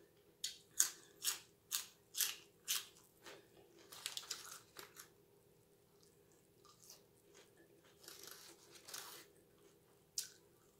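Close-up crunching of a raw celery stick being bitten and chewed: about six sharp crunches roughly half a second apart in the first few seconds, then quieter chewing.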